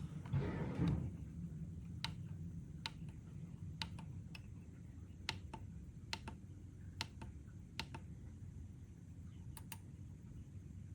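A brief louder noise in the first second, then a series of sharp, light clicks at irregular intervals, roughly one or two a second, over a steady low hum.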